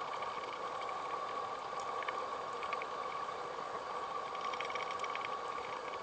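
Underwater ambience picked up through a camera housing: a steady hum with scattered quick ticks and short high chirps.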